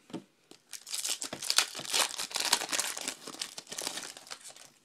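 Foil wrapper of a baseball card pack crinkling as it is torn open and peeled off the cards, a dense rustle from about a second in until just before the end.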